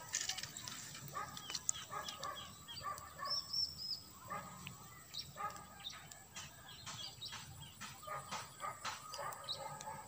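Repeated short animal calls, likely distant dogs barking, with a few high bird chirps about three and a half seconds in.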